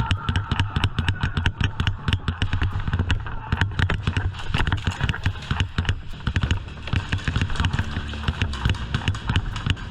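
Airsoft guns firing across the field in rapid, irregular pops and clicks, several shots a second throughout.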